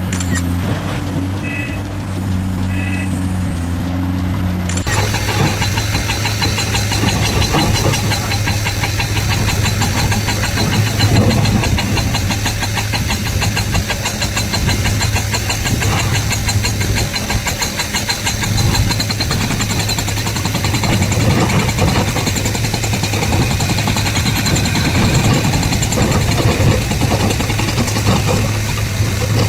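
Heavy diesel engine of earthmoving machinery running steadily, with two short high beeps early on. About five seconds in, the sound changes abruptly to a louder, denser clattering engine note that runs on.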